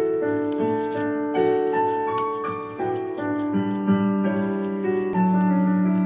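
Background piano music: a slow run of held notes and chords, changing about every half second.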